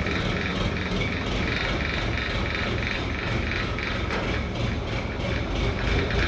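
A heavy engine running steadily, with a faint regular pulsing over its low rumble.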